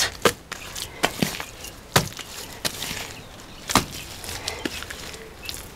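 Bare hands slapping and pressing wet clay mud while shaping a mud stove: a series of irregular sharp slaps with softer squelching handling between, the loudest about two seconds in and just before four seconds.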